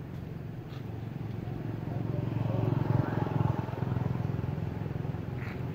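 Low engine hum of a passing motor vehicle, swelling to a peak about three seconds in and then easing off.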